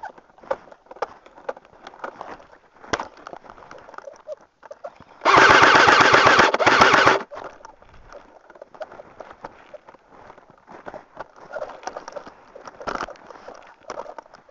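Airsoft rifle firing close by on full auto: two rapid bursts about five seconds in, together lasting about two seconds, with a short break between them. Around them are scattered crunching steps and rustling in snow.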